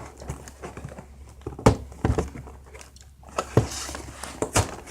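A cereal box being opened and handled: faint rustling of cardboard and packaging, with four or five sharp clacks or knocks spread through it.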